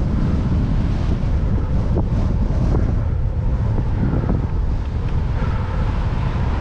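Strong wind buffeting the microphone of a camera on a moving bicycle: a steady, loud, low rumble.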